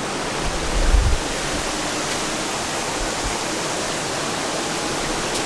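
Rushing water from a rain-swollen rainforest creek and waterfall, a steady, even hiss. About a second in there is a brief low rumble.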